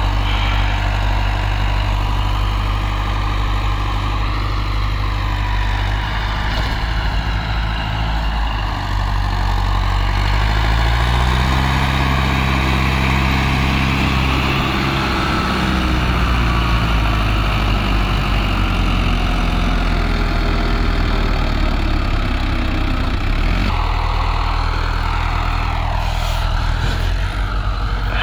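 Swaraj 843 XM tractor's three-cylinder diesel engine running under heavy load, hauling a trolley full of sand through deep sand. The engine revs up about eleven seconds in and holds there, drops back about two-thirds of the way through, and starts rising again at the very end.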